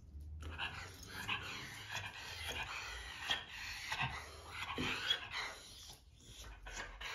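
A dog whining in high, wavering 'hee-hee' whimpers, almost without a break, eager and begging for her dinner; the whining eases off about six seconds in.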